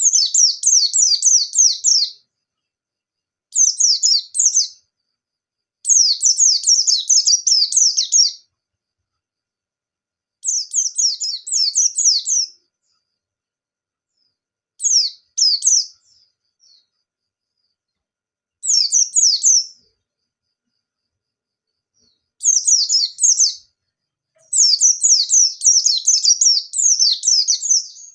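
A white-eye (pleci) in full song, giving about eight quick high-pitched phrases of rapid falling notes, each one to two and a half seconds long, with short pauses between them.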